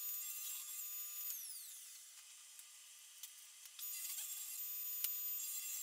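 Table saw ripping narrow cedar strips. A thin, high whine falls in pitch and fades a second or so in, then comes back near four seconds in, with a few faint clicks.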